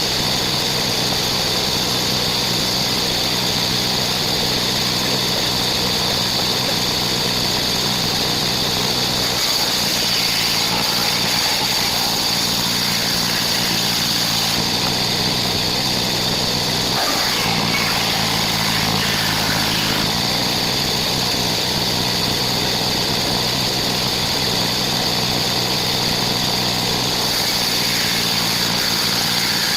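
A powered wood saw running steadily, with a constant high whine over a low motor hum; the tone shifts slightly about ten and again about seventeen seconds in.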